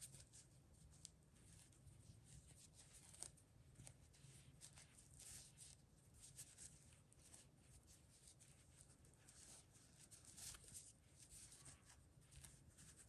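Near silence: faint rustling and soft scattered ticks of yarn being handled as a crocheted chain is threaded through the stitches of a crocheted bag, over a low steady hum.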